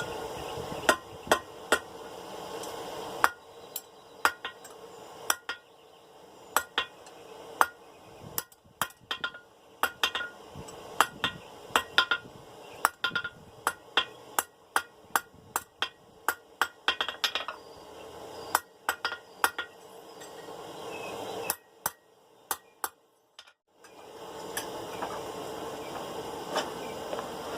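Blacksmith's hammer striking hot steel bar on an anvil: a long run of irregular blows, some with a brief metallic ring, as a hook is forged. The blows stop for a couple of seconds a little before the end.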